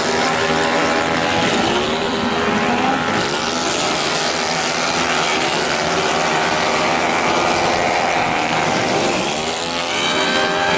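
A pack of racing 131cc automatic scooters running flat out, their small single-cylinder engines wailing together at high revs. The several engine notes overlap and rise and fall in pitch as the bikes brake, lean through a corner and accelerate away.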